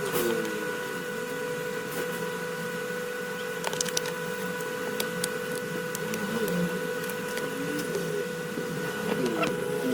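A steady machine hum that holds one pitch throughout, with a few small clicks and faint wavering tones underneath.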